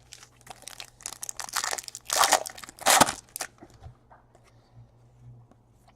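Crinkling and rustling of a trading-card pack wrapper and cards being handled, in irregular bursts that thin out after about three and a half seconds.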